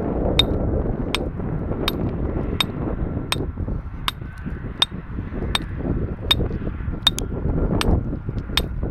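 Short, sharp metallic taps at a steady pace, about one every three-quarters of a second, like a hammer or metal tool striking rock, over a low wind rumble.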